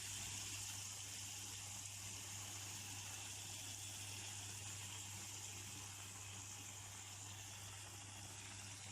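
Marinated chicken pieces frying in hot oil, a steady high sizzle that eases slightly over the seconds, with a low steady hum underneath.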